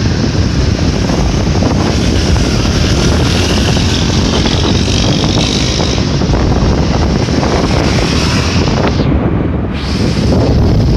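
Wind buffeting the microphone on a moving motorcycle, over low engine and road rumble. The high hiss thins out briefly near the end.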